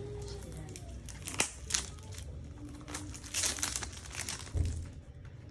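Plastic product packaging crinkling and crackling in irregular bursts as hands struggle to get it open, with a soft thud near the end.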